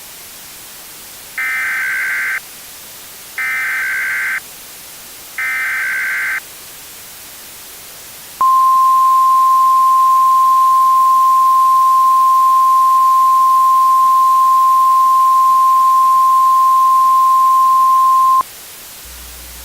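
Emergency Alert System SAME header: three screechy digital data bursts of about a second each, two seconds apart. About eight seconds in, the NOAA Weather Radio 1050 Hz warning alarm tone follows, a loud steady beep held for about ten seconds. The sequence marks the start of a coded weather alert broadcast.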